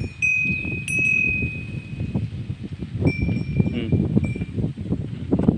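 A bell on an Ongole bull's neck ringing a few times at irregular moments as the bull shifts about, over low rustling and shuffling.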